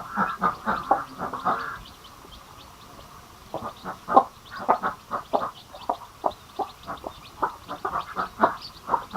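Mother hen clucking in quick runs of short calls, with newly hatched chicks peeping faintly above; the clucking pauses for about a second and a half roughly two seconds in.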